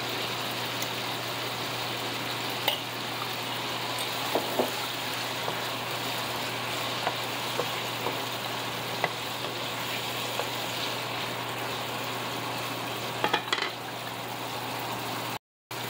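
Potatoes and carrots sizzling in hot seasoned oil in a frying pan: a steady sizzle, with a few light clicks of a spoon stirring against the pan. The sound cuts out completely for a moment just before the end.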